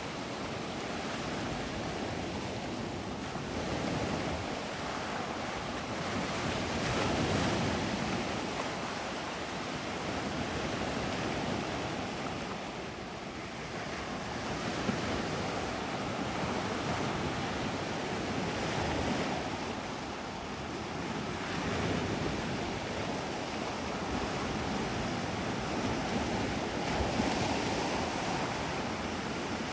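Sea waves breaking and washing up a gravelly shore, swelling and easing every few seconds, with wind blowing across the microphone.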